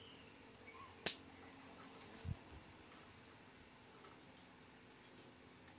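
Steady high-pitched insect chirring in the background, with one sharp click about a second in and a short low thump a little after two seconds.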